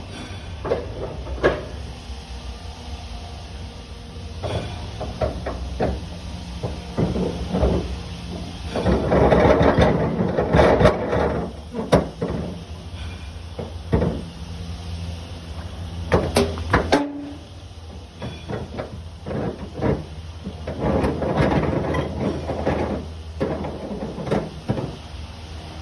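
Irregular metal clanks, knocks and rattles over a steady low engine hum.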